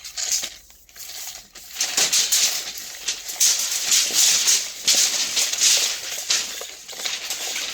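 Steel tape measure blade being pulled out of its Milwaukee case toward full extension: a continuous rattling rasp with many small clicks, starting about two seconds in.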